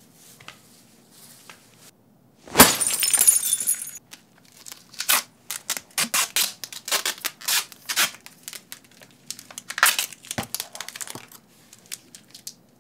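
Crinkling and rustling of a crinkly sheet being handled by hand. About two and a half seconds in there is a loud rush of crinkling, then a long run of short crackles.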